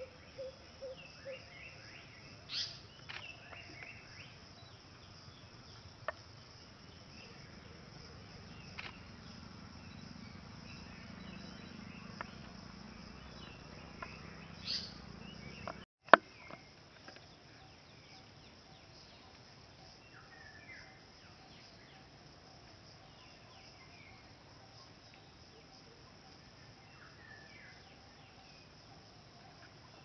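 Woodland ambience: short bird chirps and calls come and go over a faint steady insect hum. Near the start there is a short run of even pulsing notes. About halfway the sound drops out for a moment and comes back with a sharp click.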